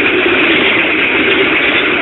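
Passenger train coaches passing close by at speed: a loud, steady noise of wheels running on the rails.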